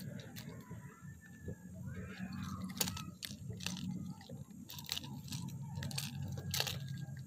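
Close handling noise as a hook is worked out of a freshly caught snapper's mouth: irregular clicks, crackles and scrapes over a low steady rumble.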